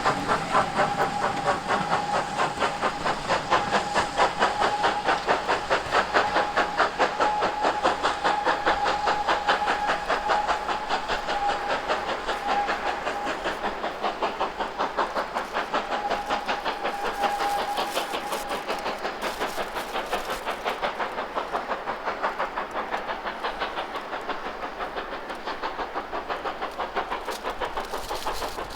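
Steam locomotive working hard, its exhaust beating in an even, quick rhythm with steam hiss. A steady high tone sounds over it and stops about two-thirds of the way through.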